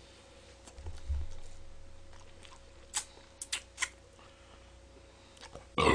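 Chewing and biting crispy fried chicken: a low thud about a second in, a few short, sharp crunches around three seconds in, and a louder sharp sound at the very end.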